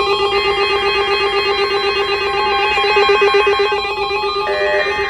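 Loud synthetic electronic tones, several pitches held together like a chord and shifting in steps. Short notes start repeating about twice a second near the end.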